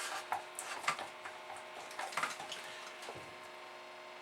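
Faint scattered clicks and light taps of small objects being handled at a workbench, over a low steady hum.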